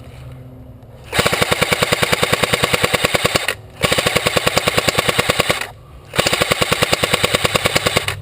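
Airsoft gun firing full-auto in three long bursts of rapid, evenly spaced shots, each about two seconds long, with short pauses between them.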